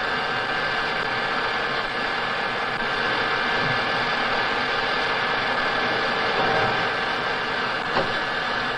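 Colchester centre lathe running steadily while cutting a screw thread, a steady high whine over an even mechanical hum. A faint click near the end.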